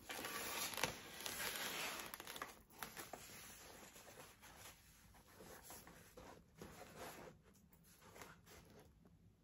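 Rustling and crinkling as ribbon is pulled and wrapped around a foam cooler packed with plastic snack bags, with a few small clicks and taps. It is loudest in the first couple of seconds, then fades to faint handling noise.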